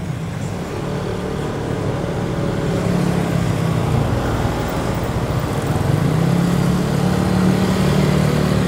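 Motorcycle engine running while riding, getting steadily louder, its note strengthening about three seconds in and again near six seconds.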